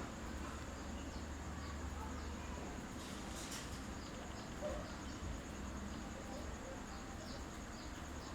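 Steady high-pitched insect trill, like crickets, with a few faint short chirps scattered through it over a low background hum.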